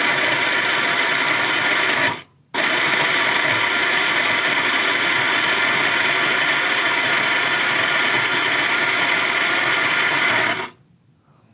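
Ascaso i-Mini I1 flat-burr coffee grinder grinding espresso beans: it runs steadily, stops for a moment about two seconds in, then runs again and cuts off near the end.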